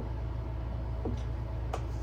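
Steady low hum in a small room, with two faint light ticks, one about a second in and one near the end.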